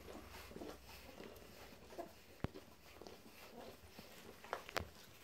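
Young puppies faintly stirring and whimpering. Two sharp clicks sound, the louder about halfway through and another near the end.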